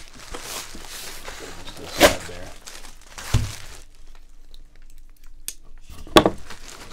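Plastic mailer bag crinkling and tearing as it is cut open. A sharp crackle comes about two seconds in and another near the end, with a dull thump around the middle.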